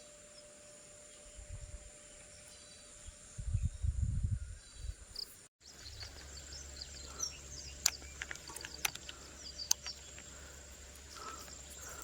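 Outdoor ambience with a steady high-pitched insect drone, broken by a few low thumps early on and, after a brief gap, a low rumble with scattered sharp clicks.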